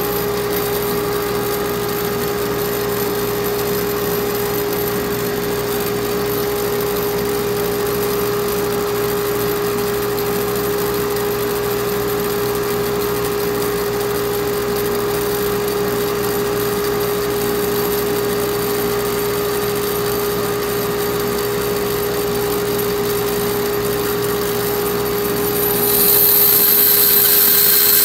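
Bandsaw running steadily with a constant hum. Near the end a louder hiss joins in as the blade starts cutting into the wooden board.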